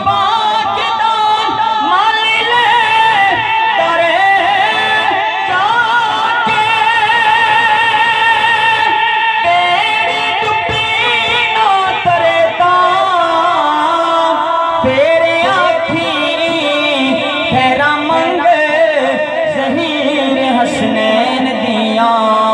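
A man singing a naat, a devotional Urdu/Punjabi poem, into a microphone through a loudspeaker, in long held notes with a fast wavering ornament.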